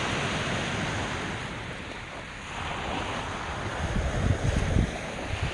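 Sea surf washing on the beach in a steady rush, with wind buffeting the microphone in low gusts that grow stronger near the end.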